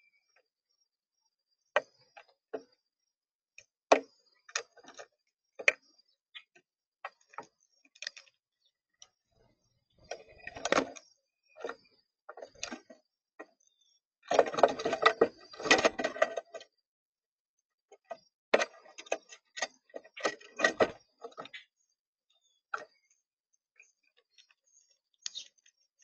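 Birds pecking and scrabbling at a bird feeder: irregular sharp taps and clicks, in quick clusters around the middle.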